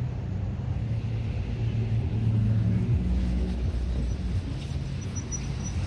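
Low rumble of a car engine on the street, swelling about two to three seconds in.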